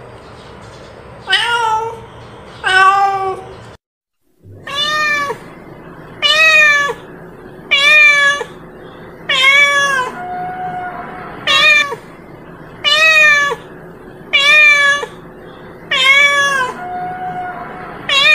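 A domestic village cat (kucing kampung) meowing over and over in loud calling meows, each rising then falling in pitch, about one every second and a half, with a brief break about four seconds in.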